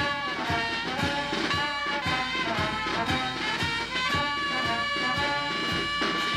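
Village brass band playing a tune: sousaphones and trumpets carry sustained notes over a steady beat from the bass drum and snare drum.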